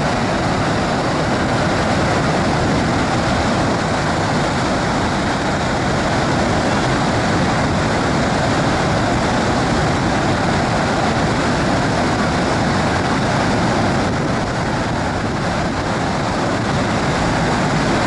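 Jog Falls in heavy monsoon flow: a loud, steady rush of a large volume of water plunging over the cliffs.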